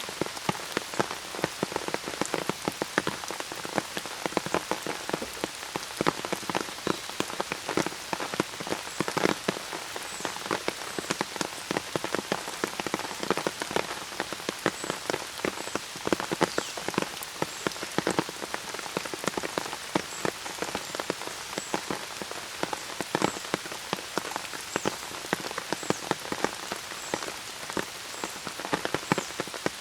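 Steady rain with many sharp, close drop impacts over a hiss of falling rain. From about fifteen seconds in, faint high chirps repeat about once a second.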